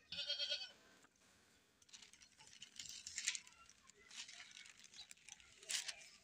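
A baby goat gives one short, wavering bleat, then only faint, scattered noises follow.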